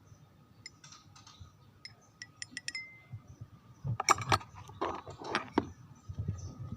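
Light clinking and clattering of small hard objects: scattered clicks, a short ringing clink about three seconds in, then a louder burst of clatter from about four seconds to five and a half.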